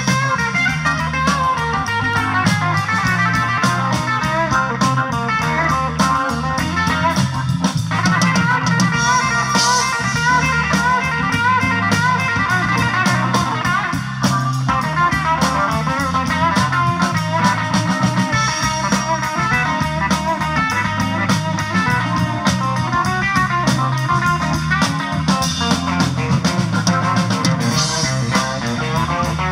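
Live instrumental blues-rock: a hollow-body electric guitar plays busy lines over a drum kit, with a Hammond organ under it.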